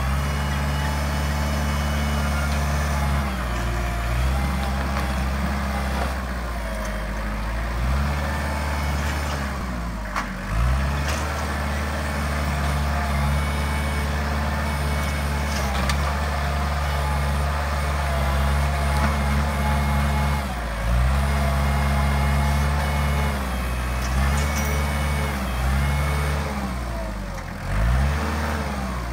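Kubota compact diesel tractor engine running under load as its front-end loader digs and pushes dirt; the engine note sags and recovers several times when the bucket bites.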